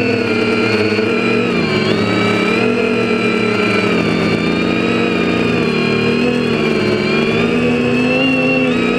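Quadcopter's Tiger Motor MT2216-9 1100kv brushless motors and APC 9x4.7 propellers whining, several close pitches rising and falling together as the throttle changes in flight.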